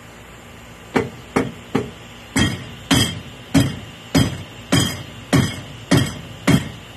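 A dead blow hammer striking the skeg at the lower end of a Mud-Skipper 85-inch longtail mud motor's shaft, about eleven blows, each with a short metallic ring: three quick ones, then a steady beat of roughly two a second. The blows drive the prop shaft up into the PTO housing until it is fully seated.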